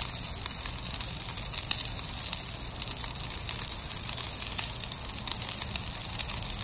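Wagyu ribeye steaks searing on a hot Blackstone flat-top griddle: a steady sizzle with many small crackles and pops.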